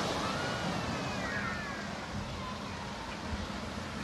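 Water cascading from a splash pad's tipping bucket, a steady rushing splash, with faint distant voices of children playing.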